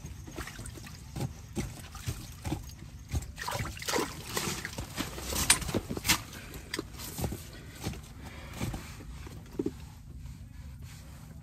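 Rustling with a string of small knocks and a little splashing and trickling water, as a freshly caught crappie is handled by the ice hole. It is busiest and loudest from about three and a half to six and a half seconds in.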